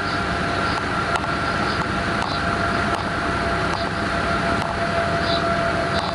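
Class 186 (Bombardier TRAXX) electric locomotive running at speed: a steady rumble and rush of rolling, with a steady high whine over it and a few faint clicks.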